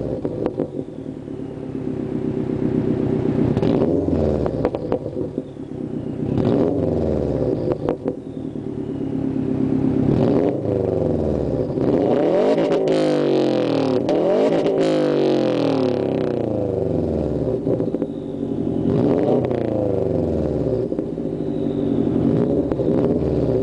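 2008 Subaru WRX turbocharged flat-four heard through its turbo-back dual exhaust, revved again and again while parked, each rev rising sharply and falling back toward idle.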